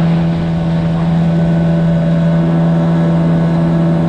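Outboard motor on a small aluminium tinny running at a steady cruising speed, holding one even pitch.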